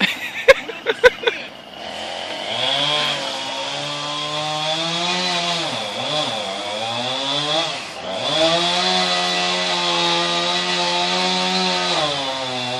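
Chainsaw running with its engine speed rising and falling: held high, dipping twice in the middle, then easing down near the end. A few sharp knocks come just before it starts.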